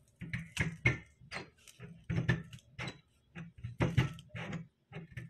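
A honing head being worked by hand, its shaft pressed down to push the honing stones outward, with an uneven run of metal clicks and knocks, about a dozen in five seconds.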